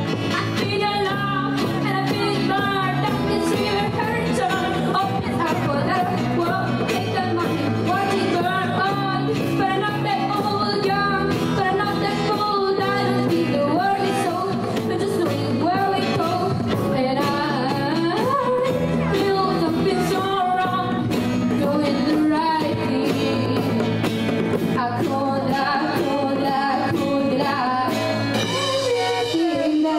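Live pop song: a girl singing into a microphone, backed by a small band of acoustic guitar, piano and drums.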